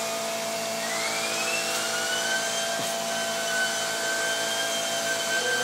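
Red upright vacuum cleaner running steadily, its hose and extension wand working over upholstered seat cushions. A whine in its sound rises in pitch about a second in, then holds steady.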